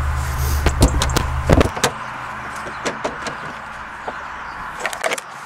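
Wooden table top and leg knocking and sliding as they are fitted together, a scatter of sharp knocks and clicks. A low rumble underneath stops about a second and a half in.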